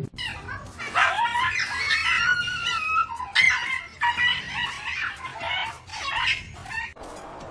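A string of high, wavering animal cries from a cat and a dog squaring off, repeating from about a second in until near the end.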